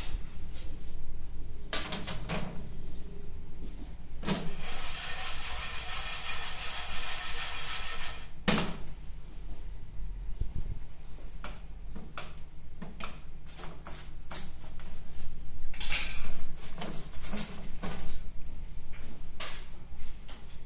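Kitchen work sounds: scattered clicks and knocks of things being handled, with a hiss of about four seconds in the middle and a busier run of clatter in the last third, over a steady low hum.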